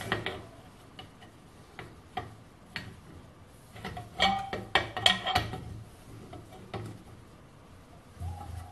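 Steel spanner clicking and knocking against a sawn section of cast aluminium alloy wheel rim as it is levered back and forth to break it off, with a cluster of louder metallic clanks about four to five seconds in.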